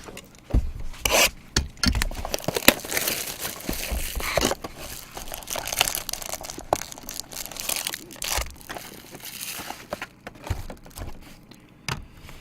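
Wrapping on a box of trading cards being torn open and crumpled, with the cards being handled: a run of rustling, tearing and crinkling with sharp clicks, dying down near the end.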